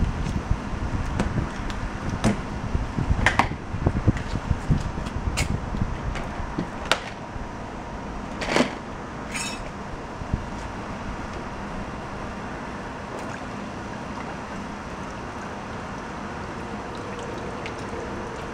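Plastic storage tote's lid being unlatched and lifted off: a series of sharp clicks and knocks from the plastic latches and lid over the first half, with low thuds of handling early on. After that only a steady background hum.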